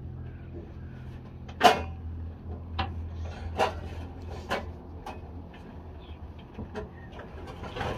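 A handful of scattered sharp knocks and clatters, the loudest about two seconds in, over a low steady hum.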